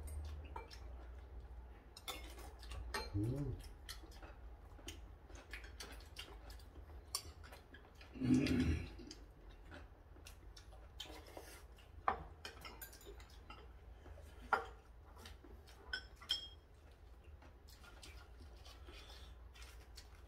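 Chopsticks and a spoon clicking and clinking against bowls and dishes during a meal: scattered light taps, with a few sharper clinks in the second half.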